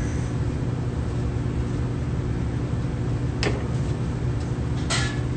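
Steady low hum of commercial kitchen machinery. A single sharp click about three and a half seconds in as a knife is set down on a cutting board, and a short rustle near the end.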